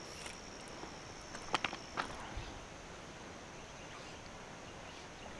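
Faint outdoor ambience with a steady high insect trill that stops about two seconds in, and a few short soft clicks near the middle.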